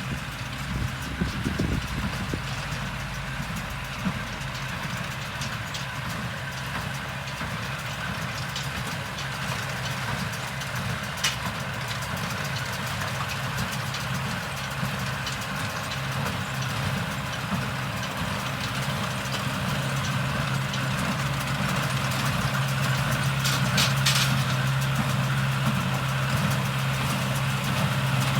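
Tractor engine running steadily while baling hay, with a few faint clicks. It gets louder in the second half.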